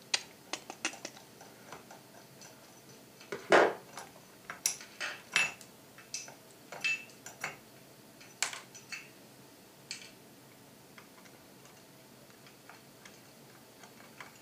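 Irregular clicks and short clatters of a screwdriver, a small screw and other hand tools being worked and set down on a wooden table, with the last trigger-guard screw coming out. Most of the clicks fall in the first ten seconds, the loudest about three and a half seconds in, and only faint ticks follow.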